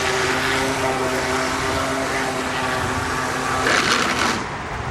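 RC jet boat's motor and jet impeller running steadily with a whine and rushing water. About three and a half seconds in, the whine cuts out under a short burst of noise: the impeller has been locked up by a rock and the jet drive is lost.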